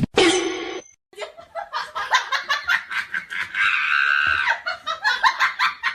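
A person laughing hard in quick bursts, with a long, high-pitched squeal about halfway through.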